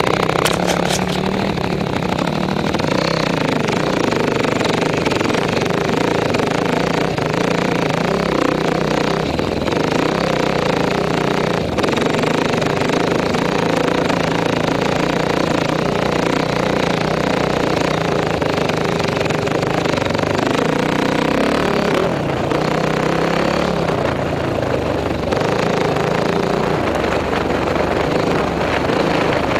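Dirt bike engine running steadily, its pitch rising and falling as the throttle changes over a rocky trail, with a few brief knocks mixed in.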